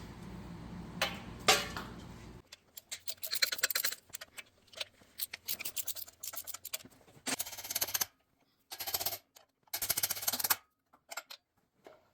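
Rapid small metallic clicks and clinks of engine parts and hand tools being handled during an engine teardown, with three short rushing bursts of noise near the end. A low background hum cuts out about two seconds in.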